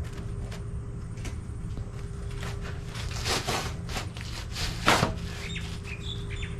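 Scattered clicks and knocks of parts being handled, with a louder clatter about three and a half seconds in and one sharp knock just before five seconds, over a steady low hum.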